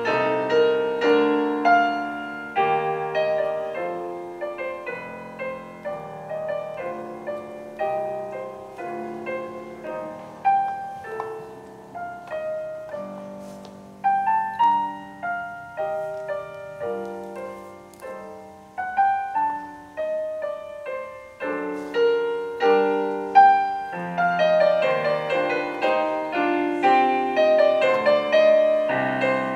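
Solo classical piano music played on a Yamaha digital stage piano, a run of single notes and chords that thins out and softens around the middle and grows fuller and louder in the last third.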